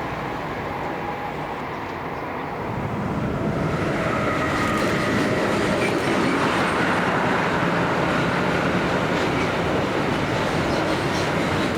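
A train running along the track, its noise swelling about three to four seconds in and then staying steady and loud.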